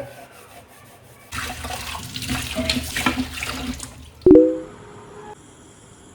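Water running from a tap into a sink for about three seconds, with some clatter, then shut off. Just after, a loud ringing clang, like a metal object being struck or set down.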